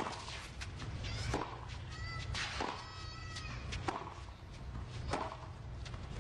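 Tennis rally: the ball is struck by rackets about every second and a quarter, four or five hits in a row. Short high squeaks come between two and three and a half seconds in.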